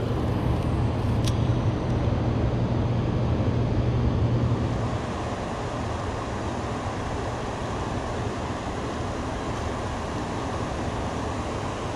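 Steady low rumble and hiss of background noise, a little louder for the first five seconds, with one short click about a second in.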